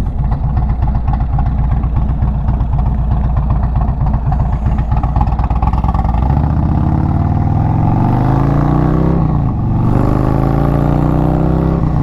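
Indian Thunderstroke V-twin with Stage 2 kit and slip-on exhausts with Zombie baffles, heard from the rider's seat. It runs at a steady cruise with wind buffeting the microphone, then accelerates from about six seconds in, its pitch rising. It drops at an upshift about three and a half seconds later and rises again, with another shift near the end.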